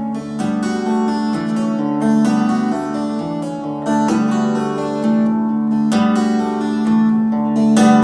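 Solo acoustic guitar playing an instrumental piece: ringing, sustained notes over a low held drone, with strong new attacks about every two seconds.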